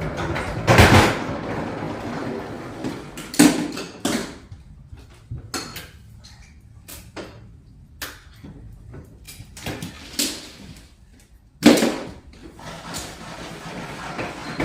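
Dyson vacuum cleaner parts and attachments being handled: a scatter of clicks and knocks, with louder knocks about a second in, at about three and a half seconds and near twelve seconds. The vacuum is not running.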